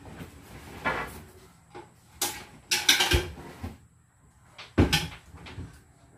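Irregular knocks and clatters of stockroom items being handled and put down, with a dense cluster of clattering about three seconds in and a sharp knock just before five seconds.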